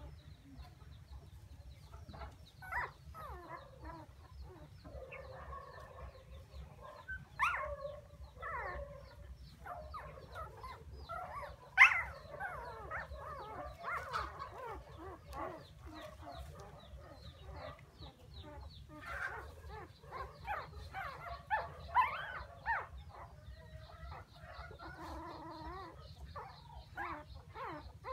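Young puppies whimpering and crying in many short, high, wavering squeals, with a sharp click about twelve seconds in.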